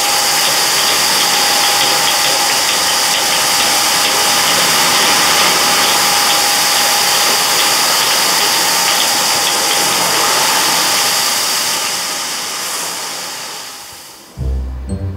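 Konpeito sugar grains tumbling in a rotating pan, a dense rain-like hiss with a faint steady whine, fading out in the last few seconds. Music comes in near the end.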